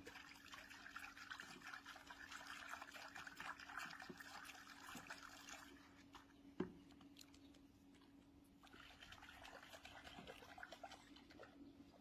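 Faint water splashing and trickling from a baby monkey swimming, in two stretches with a single sharp knock between them.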